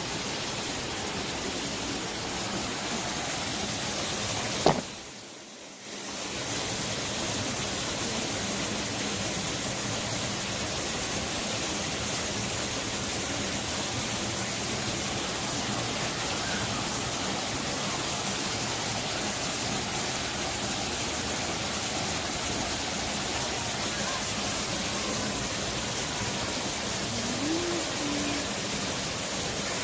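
Steady rush of a waterfall pouring into a pool. About five seconds in, a sharp click is followed by a drop in level lasting about a second.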